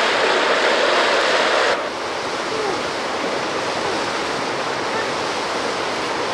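Steady rush of flowing water running over rocks, an even wash of noise that drops a little in level about two seconds in.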